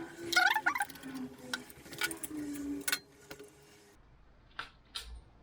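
Squeaking from a broken, seized bolt being turned in its thread: wavering squeals and short chirps with a few sharp metal ticks. After about four seconds it stops and only two light clicks follow.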